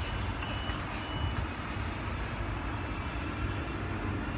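Steady rumble of a Sydney Trains OSCAR (H set) electric multiple unit running along the track away from the listener. A faint, high, evenly repeating beep is heard in the first second or so.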